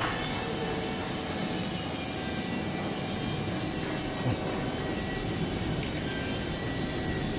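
Steady whir of factory machinery running, with a faint tone over a noisy hum and one brief knock about four seconds in.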